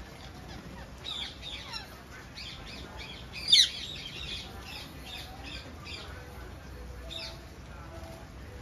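Indian ringneck parakeets calling: a run of short, high-pitched squawks, with one much louder screech about three and a half seconds in.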